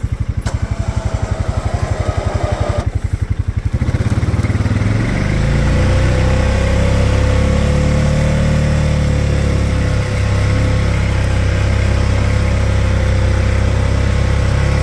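Honda Rubicon 520 ATV's single-cylinder engine running, pulsing evenly at low revs, then picking up revs and getting louder about four seconds in and holding there as the machine drives on.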